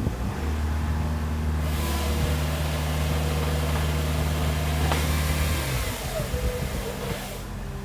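Magni telehandler's diesel engine running under load while the hydraulic chainsaw bar in its tree-removal clamp cuts through a limb, a loud hiss for about six seconds with a sharp crack about five seconds in. The cutting and the engine load drop off near the end.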